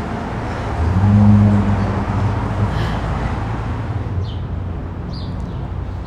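A motor vehicle's engine droning, louder for a couple of seconds about a second in, over a steady low hum of road traffic; a few faint short chirps near the end.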